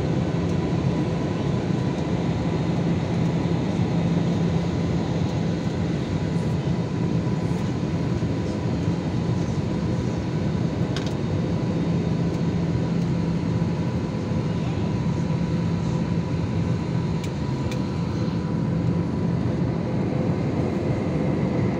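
Steady airliner cabin noise in cruise: the underwing turbofan engine's drone mixed with rushing airflow, with a few faint steady tones on top.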